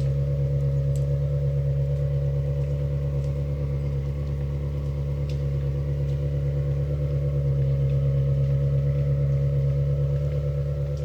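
Ferrari 360's 3.6-litre V8 idling steadily, swelling slightly in level about eight seconds in.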